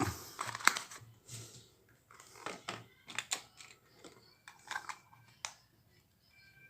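Irregular small plastic clicks and light knocks as handheld nano spray units are handled and switched on and off to test them.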